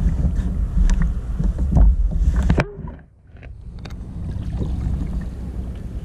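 Wind rumbling on an action camera's microphone over a plastic kayak, with scattered knocks and handling clicks from gear on the hull. The sound cuts out abruptly about two and a half seconds in and comes back as a fainter steady rumble.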